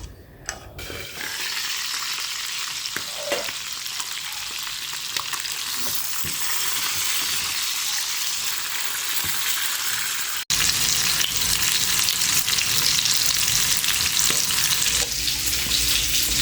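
Seasoned lamb frying in hot oil in a pan: a steady sizzle that becomes louder and fuller from about ten seconds in.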